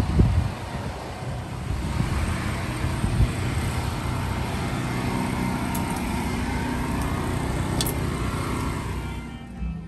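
Road traffic: a steady wash of passing cars, swelling about two seconds in and falling away near the end.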